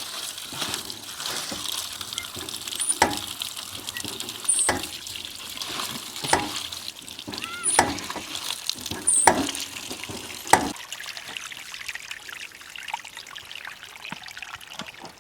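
Water trickling and splashing, with about six sharp clinks of a pot or dishes spaced a second or two apart. It grows quieter near the end.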